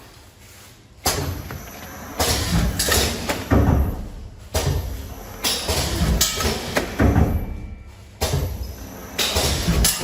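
Vertical packaging machine running, with a series of clunks and thuds from its mechanism at uneven intervals, about one a second, after a quieter first second.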